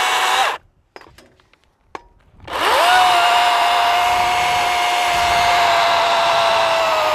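DeWalt FlexVolt battery-powered chainsaw with a steady high electric whine. It winds down about half a second in as the trigger is released, leaving a couple of seconds of near quiet with a few light clicks. About two and a half seconds in it spins quickly back up and runs steady while making an undercut in a thick limb.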